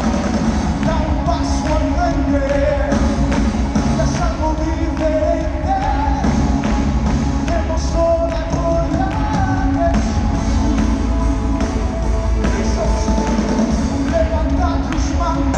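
Live worship band playing a loud, upbeat Spanish-language worship song, with a lead voice singing over a steady drum beat, heard through the echo of a large arena.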